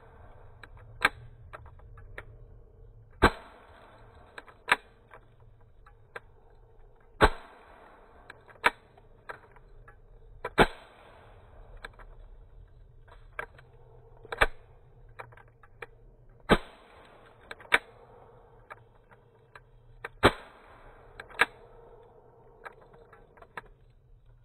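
A 4.5 mm pistol firing a series of sharp single cracks, irregularly spaced one to four seconds apart, with fainter clicks in between.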